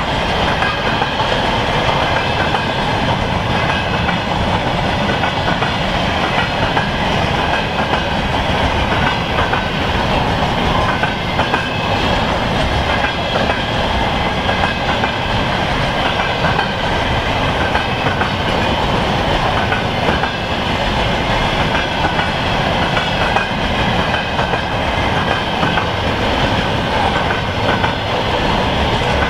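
Freight train of empty flatcars rolling past, its wheels running steadily over the rails.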